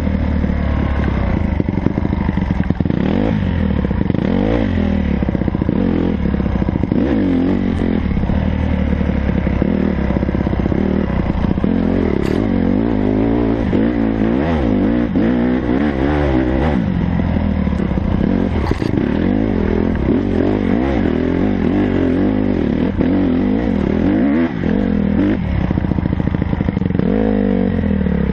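Honda CRF150R's single-cylinder four-stroke engine revving up and down over and over as the dirt bike pulls uphill.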